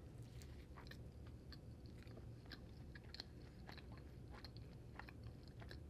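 Quiet chewing close to the microphone: faint, irregular small mouth clicks over a low steady hum.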